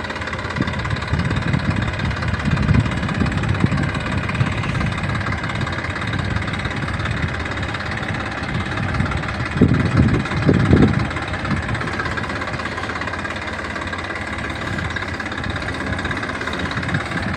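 Massey Ferguson diesel tractor running steadily as it pulls a trolley loaded with wheat sacks, with a stretch of louder low rumbling about ten seconds in.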